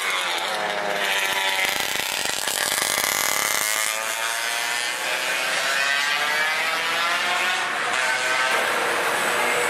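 Several mopeds and small motorcycles riding past, their small engines running and revving, with the pitch falling and rising as they go by.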